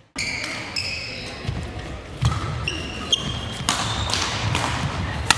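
Badminton rally on a sprung wooden hall floor: sports shoes squeaking in short high-pitched chirps as the players lunge and turn, with footfalls and a few sharp racket hits on the shuttlecock, the sharpest near the end.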